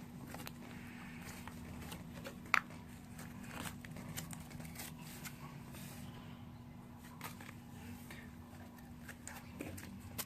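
Homemade slime being squeezed and kneaded, giving many small, irregular wet pops and crackles as trapped air escapes, with one sharper, higher pop about two and a half seconds in.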